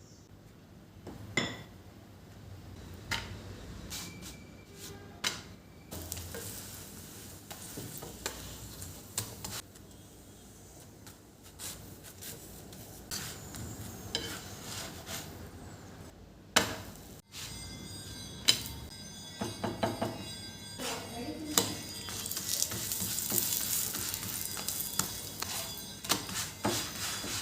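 Household items being handled and set down: a scattered string of small knocks, clicks and rustles, with a sudden break partway through.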